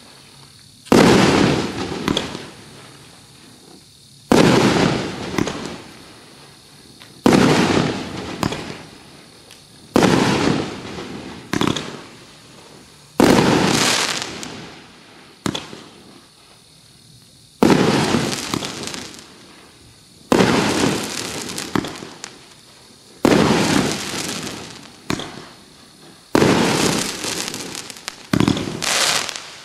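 A 14-shot consumer firework cake firing its aerial shells one after another, a loud bang about every two to three seconds, each followed by a fading tail. Near the end, two bursts come close together.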